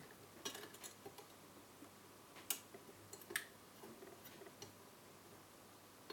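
Faint scattered clicks and light taps of the car head unit's casing and parts being handled, with two sharper clicks about two and a half and three and a half seconds in.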